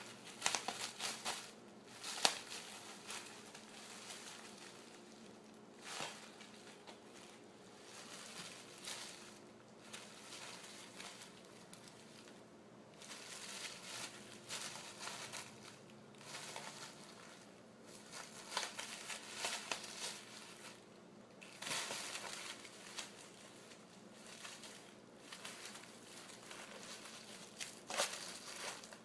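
Plastic bubble wrap crinkling and crackling in irregular bursts as a ferret scrabbles and rolls about on it.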